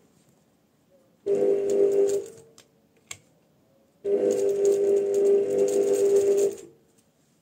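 Electric sewing machine stitching in two runs, a short one of about a second and then a longer one of about two and a half seconds, with a single click between them. It is sewing a short seam.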